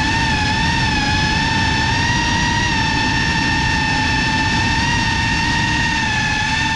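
FPV quadcopter's brushless motors and propellers whining steadily as it flies, recorded on the onboard camera, over a low rush of noise. The pitch wavers only slightly.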